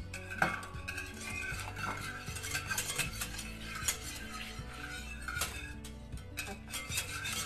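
Wire whisk beating a thin cake batter in a large mixing bowl, its wires clicking and scraping against the sides of the bowl in quick, uneven strokes.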